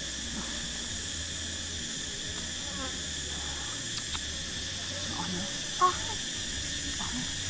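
Steady chorus of insects chirring, a continuous high hum, with a short louder sound about six seconds in.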